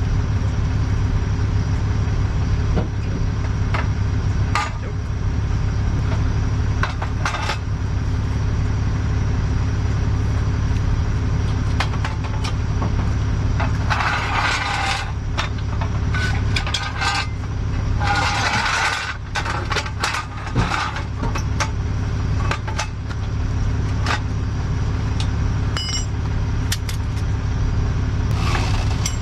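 Tow truck engine idling with a steady low hum, while metal hardware on the wheel lift clinks and knocks as a car is secured for towing, with two longer spells of rattling about halfway through.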